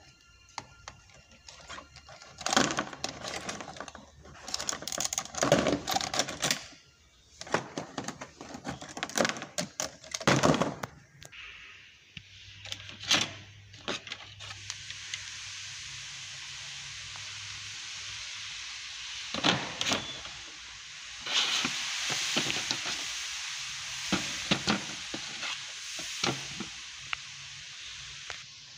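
Plastic clicks, knocks and rattles as a toy quadcopter drone's plastic body and battery pack are handled. From about halfway a steady hiss runs under the further clicks.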